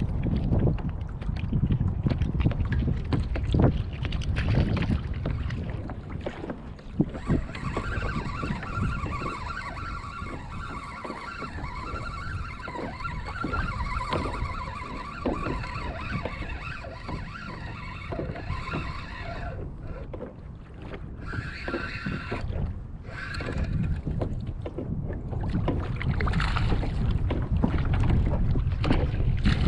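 Wind buffeting the microphone and choppy water slapping against a fishing kayak, with scattered knocks. A steady whirring whine sets in about a quarter of the way in, holds for about twelve seconds, and comes back briefly twice near the end.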